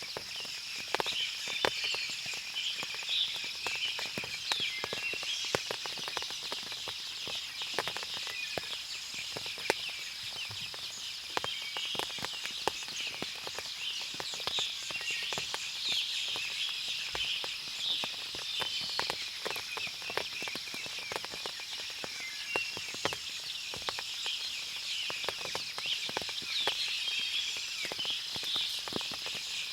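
Forest soundscape after rain: frequent irregular drips and patters of water falling from the trees, over a steady high hum of insects and many short, high bird chirps.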